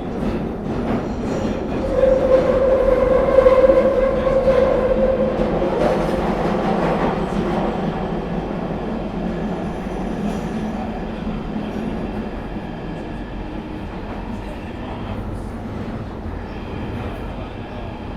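London Underground Northern Line train running between stations, heard from inside the carriage: a steady rumble and rattle of the car. About two seconds in a loud high whine rises over it, then fades out by about six seconds. The train runs on a little quieter after that.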